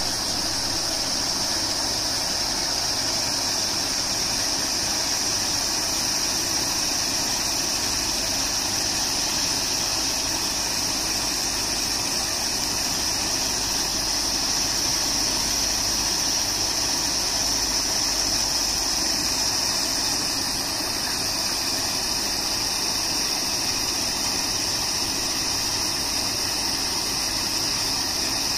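Electric paddle wheel aerators running in a fish pond: a steady machine hum mixed with the constant hiss and splash of water churned up by the spinning paddles.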